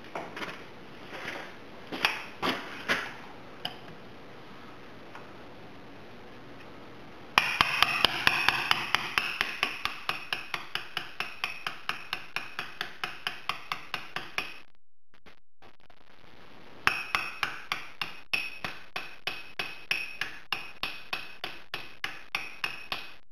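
Hammer tapping a large four-wheel-drive axle nut socket that is used as a driver to seat a new pinion seal in a Jeep Liberty rear differential. Each strike rings metallically. A few separate knocks come first, then long runs of steady taps, several a second, broken by a short silent gap midway.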